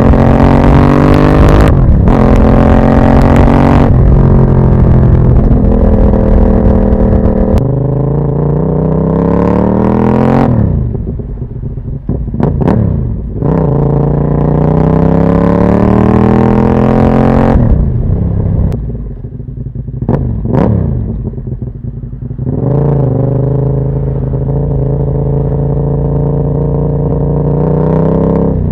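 Moto Morini Corsaro 1200 Veloce's V-twin engine through a Termignoni exhaust, accelerating hard up through several gears, with the pitch dropping at each shift. It then slows and picks up speed twice, with throttle dips, before running at a steady speed near the end.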